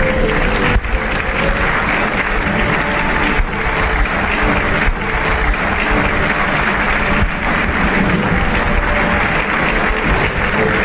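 A crowd applauding steadily, with background music underneath.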